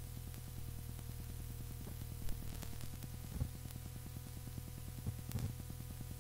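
Steady low electrical hum and hiss of an old recording, with a fine rapid pulsing in it and a few faint clicks.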